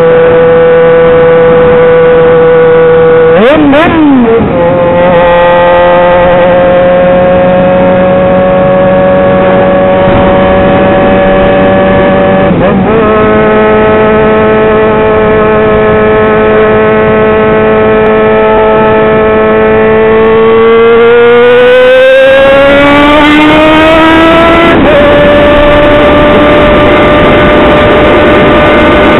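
Yamaha XJ6 inline-four motorcycle engine running loud with no muffler while riding. The note holds steady with brief dips about 4 and 13 seconds in, then climbs as the bike accelerates and drops suddenly at a gear change about 25 seconds in.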